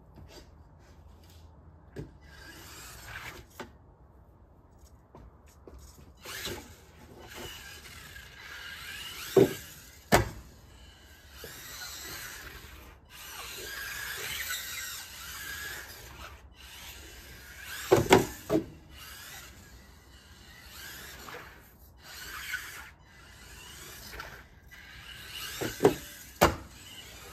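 Losi Micro-B electric RC buggy's small motor whining up and down in pitch as it speeds and brakes across a wooden deck, with sharp knocks on the boards as it jumps off plywood ramps and lands or crashes. The knocks come in pairs: about a third of the way in, around two-thirds, and near the end.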